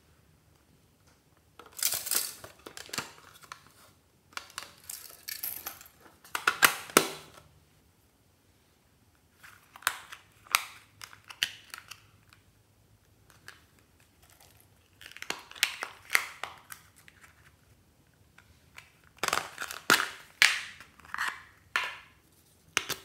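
Small hard plastic cases and toys being handled and opened: clicks, snaps and crackly rattling in about five separate bursts with quiet gaps between.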